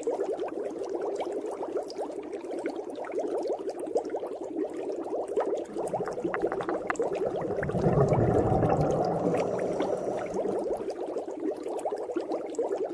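Steady underwater bubbling with a dense crackle of small pops, swelling louder with a low rumble about halfway through.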